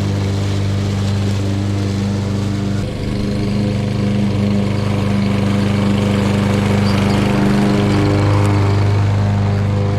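Craftsman walk-behind lawn mower engine running steadily under load while mulching dry leaves into the collection bag, with a brief dip in level about three seconds in.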